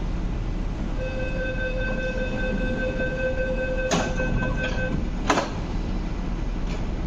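MTR East Rail Line MLR train's door-closing warning buzzer sounding one steady tone for about four seconds while its sliding doors shut, then two sharp thuds as the doors close, the second and louder one just after the buzzer stops.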